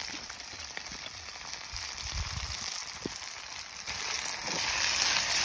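Sliced okra sizzling in hot lard in a pot, just tipped in to fry: a steady frying hiss that grows louder near the end.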